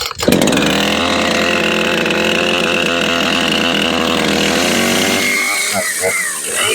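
A brand-new Husqvarna 460 Rancher two-stroke chainsaw engine is being cold-started: it catches just after the choke is pushed in and runs steadily at a high idle for about five seconds. Its note then drops and wavers near the end.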